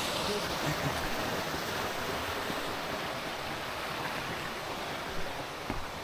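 Shallow mountain stream running over rocks, a steady rush of water, with a few soft knocks near the end.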